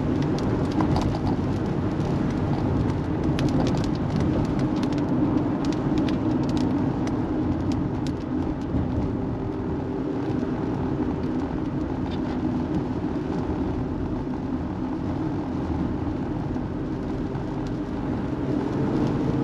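A car being driven, its steady engine and road noise heard from inside the cabin, with scattered light ticks over the first half or so.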